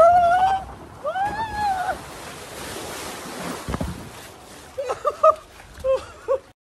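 A man yelling on a water slide: a long held cry at the start and a second cry that rises and falls about a second in, over rushing, splashing water as his inner tube slides down. A few short laughs follow, and the sound cuts off suddenly near the end.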